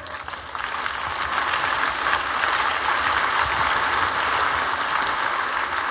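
Congregation applauding: a dense patter of many hands clapping that swells over the first second, holds and eases off near the end.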